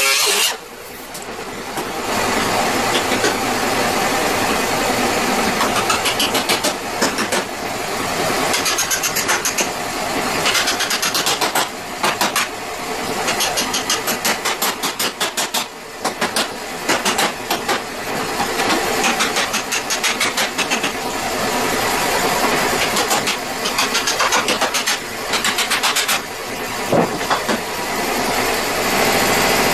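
Small air-powered grinder with an abrasive disc running against steel, grinding through the spot welds that hold a door skin. It is broken by several runs of quick, sharp hammer blows on the sheet metal.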